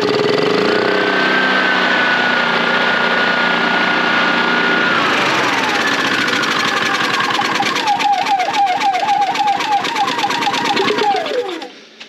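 Honda EU3000i inverter generator's single-cylinder engine running on choke, now starting and running after a valve adjustment. It rises in pitch and holds steady, drops about halfway, then surges up and down, and winds down and stops near the end as it is choked out to shut it off.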